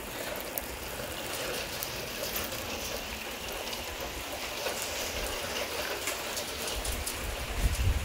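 Light rain falling, a steady hiss with scattered drop taps, over a low rumble that swells near the end.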